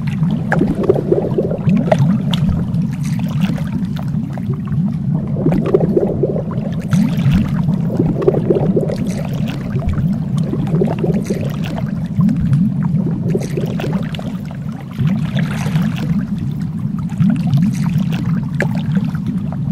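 Underwater water noise: a steady low rumble with bubbling and gurgling.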